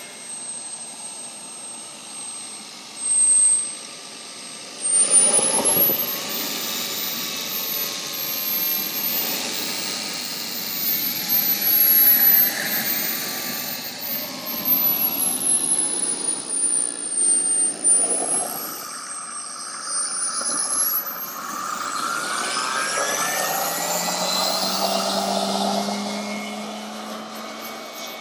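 Model turboprop engine on a Big Stick RC airplane, its turbine giving a very high-pitched whine that wavers up and down in pitch as the plane taxis. Over the last several seconds the pitch climbs as the engine spools up for the takeoff run.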